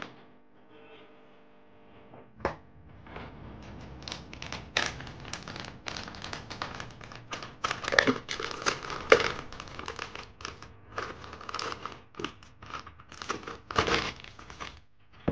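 A plastic snack bag crinkling as spicy cassava chips are shaken out of it and clatter into a plastic jar, in a dense dry crackle with louder rustles now and then. A single sharp knock comes about two and a half seconds in, before the crinkling starts.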